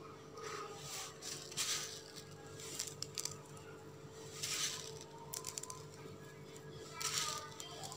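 Rainbow sprinkles scooped by hand from a plastic bowl and scattered onto cake batter: faint rustling and pattering in several short bursts, with a few light clicks.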